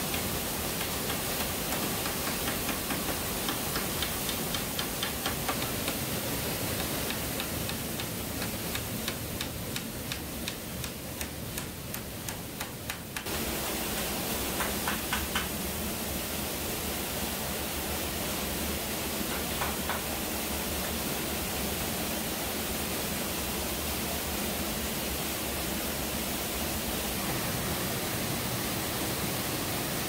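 Steady rushing noise of a waterfall. About a third of the way in, a run of quick, even clicks sounds over it, and the water noise changes suddenly near the middle.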